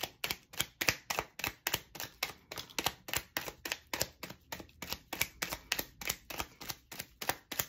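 A deck of tarot cards being shuffled by hand, the cards clicking sharply as they are riffled through and dropped back onto the deck, about four clicks a second.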